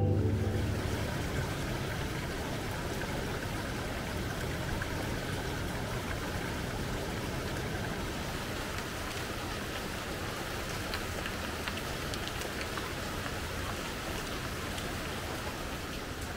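Steady rush of running water, an even noise that holds through the whole stretch.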